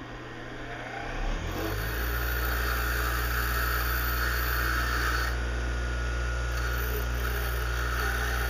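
Bench grinder motor spinning up over the first two seconds, then running steadily. The hiss of a small steel tap being ground on the wheel comes loudest from about two to five seconds in and again near the end.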